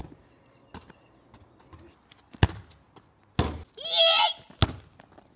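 A football kicked on tarmac with a sharp thud, followed by further short thuds of the ball about two and a half and four and a half seconds in, and a boy's high-pitched shout about four seconds in.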